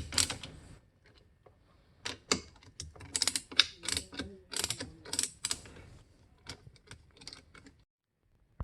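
Hand ratchet clicking in quick runs while backing out the 1/4-inch screws that hold the water softener's drive motor, thinning to a few scattered clicks near the end.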